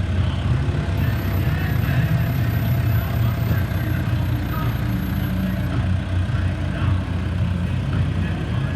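Motor vehicle engine running steadily with a deep low rumble, at a demolition derby as the last car is taken off the track.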